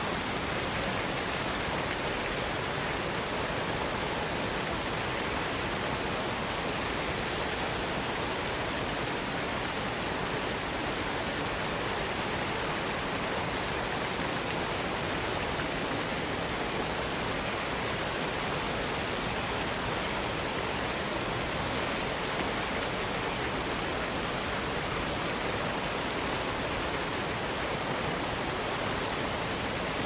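Large waterfall rushing down stepped rock ledges: a steady, unbroken wash of falling water.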